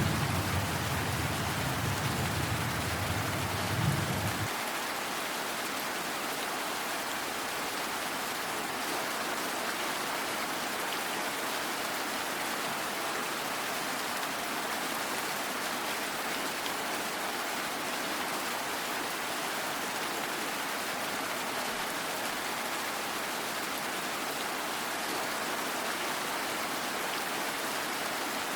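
Steady heavy rain, with the low rumble of a thunderclap dying out and stopping about four seconds in.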